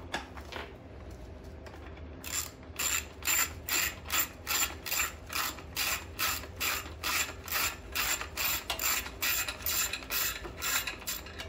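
Hand ratchet wrench clicking in a steady rhythm, about three to four clicks a second, starting about two seconds in, as it loosens a fastener.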